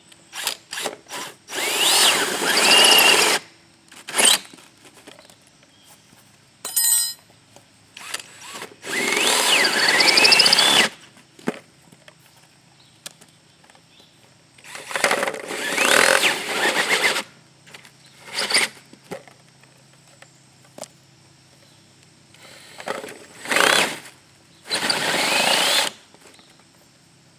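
Power drill driving an adjustable hole saw through a ceiling tile, run in about seven stop-start bursts of one to three seconds each. The motor's whine rises in pitch as some bursts start.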